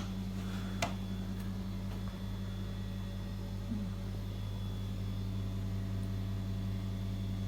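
Steady low electrical hum, as of a motor or appliance running, with a light click about a second in.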